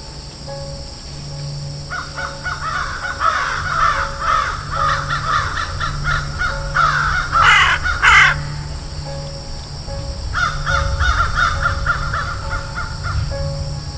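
Crows cawing: a fast run of short caws starts about two seconds in and ends with two louder caws, then another quick run of caws comes a couple of seconds later.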